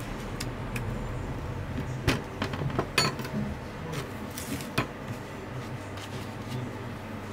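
Scattered clicks and knocks of hand food preparation: a spoon working an avocado half and the flesh and spoon knocking against a blender jar and cutting board, over a steady low hum of background noise. The sharpest knock comes about three seconds in.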